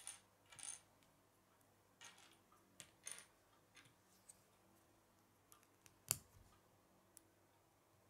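Small plastic Lego bricks being handled and pressed together: a scatter of faint clicks and light rattles, the sharpest click about six seconds in.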